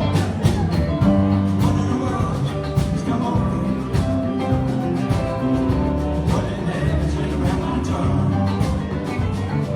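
Live rock band playing a country-rock song, with sustained pitched instrument notes over a steady drum beat.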